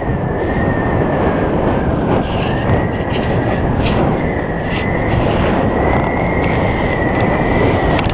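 Heavy wind rush over a helmet-mounted camera during a skydive, with a thin high whistle that wavers slightly in pitch.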